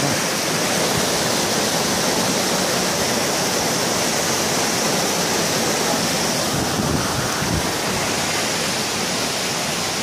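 Small mountain waterfall, white water cascading over boulders, rushing with a steady, loud roar.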